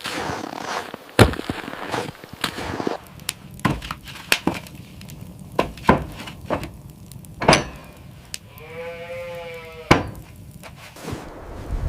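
Sharp cracks and snaps, scattered and irregular, with one bleating cry from a newborn reindeer calf lasting about a second and a half, about three-quarters of the way in.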